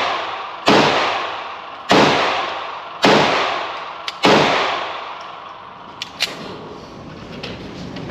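Handgun fired four times in steady succession, about a second apart, each shot trailing off in a long echo. A couple of faint sharp clicks follow about two seconds after the last shot.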